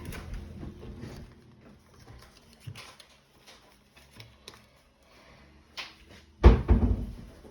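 Kitchen handling sounds: scattered light clicks and taps, then a loud, heavy thump with a brief rattle about six and a half seconds in.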